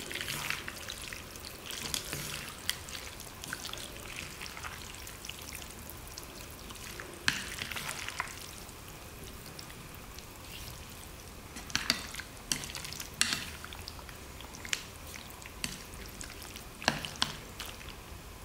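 Wooden chopsticks stirring and lifting saucy jjamppong noodles in a bowl: wet, squishy mixing sounds, now and then loudening for a second or so, with scattered sharp clicks of the chopsticks against the bowl.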